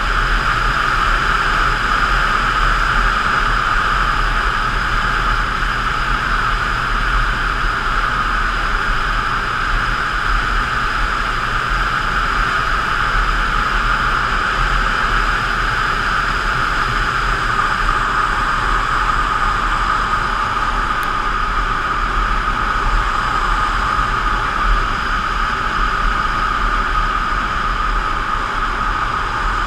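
Steady rush of wind and road noise from riding a Yamaha FZ8 motorcycle, with a low rumble underneath and no rise or fall in engine speed.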